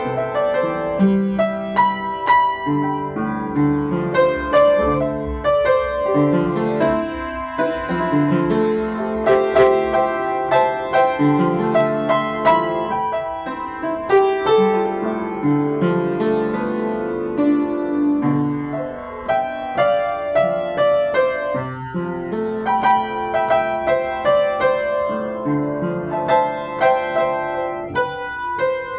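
Yamaha JU109 upright piano played solo without a break, with a melody of higher notes over held lower chords.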